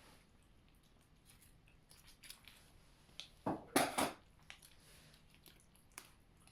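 Scattered crinkles and sharp snipping clicks of a cat-treat packet being opened and handled, with the loudest cluster about three and a half seconds in.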